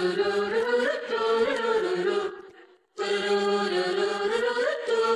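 Background music: a sustained, wordless vocal melody over a steady drone. It drops out briefly about two and a half seconds in, then carries on.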